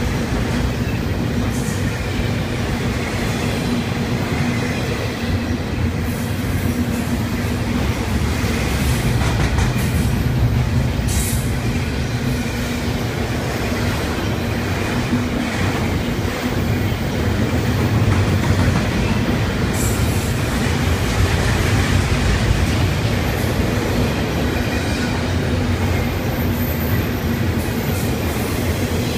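Intermodal freight train of double-stacked containers on well cars rolling steadily past, a continuous rumble of steel wheels on rail.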